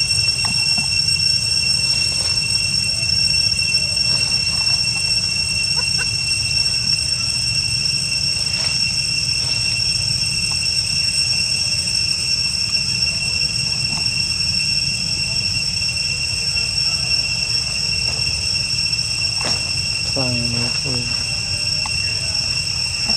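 A steady high-pitched insect drone, like a cicada chorus, runs without a break. About twenty seconds in, a macaque gives two short calls that fall in pitch.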